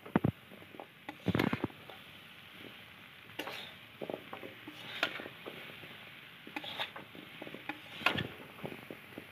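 A spoon stirring fried khurma pieces in a bowl to coat them in sugar. It makes irregular scraping and clicking against the bowl as the pieces tumble, with a few louder knocks.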